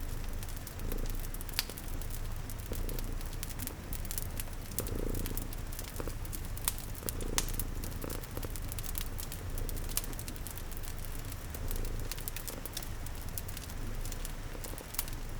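Domestic cat purring steadily in a low rumble, over a fire crackling with frequent sharp pops and a steady hiss of rain.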